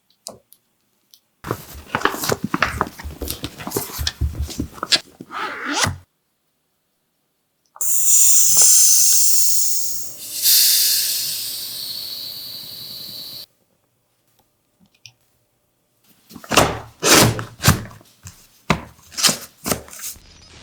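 A series of handling sounds: a few seconds of rapid clicks and rattling, then a loud hiss that fades away over several seconds, then a run of sharp knocks and thuds.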